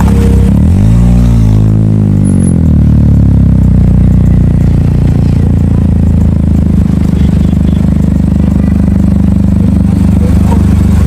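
A car's engine and dual exhaust revving up and falling back over the first two and a half seconds, then holding a steady deep drone. The louder exhaust note is switched on by a button.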